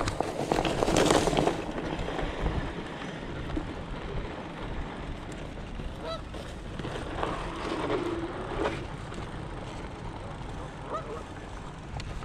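Canada geese honking, several separate calls scattered through, with a louder noisy burst about a second in.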